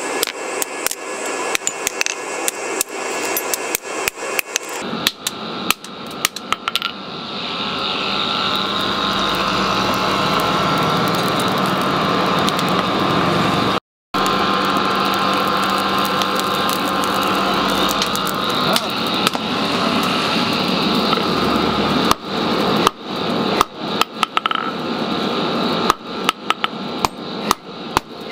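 Hammer forging of leaf spring steel: rapid hammer blows, several a second, then a steady machine noise for about fifteen seconds, then hammer blows again, more irregular.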